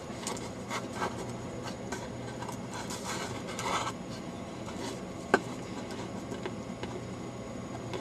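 Faint scraping and rubbing of tweezers and a small surface-mount resistor being handled off camera, with scattered light ticks and one sharp click about five seconds in, over a low steady hum.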